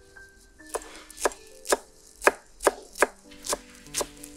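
Chef's knife chopping fresh parsley on an end-grain wooden cutting board: sharp knocks of the blade on the wood, about two a second, starting under a second in.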